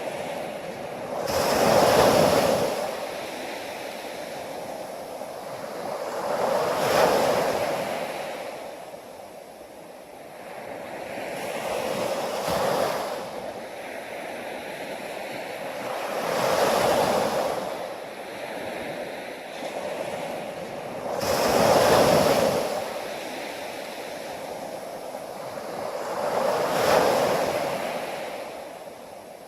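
Ocean waves breaking one after another. Each surge swells up and falls away, about every five seconds, six in all.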